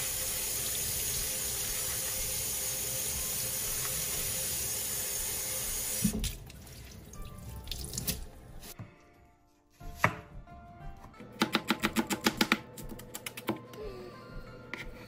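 Kitchen tap running into a stainless steel sink while leafy greens are rinsed under it, a steady rush of water that stops suddenly about six seconds in. Later comes a quick, even run of knife chops on a cutting board.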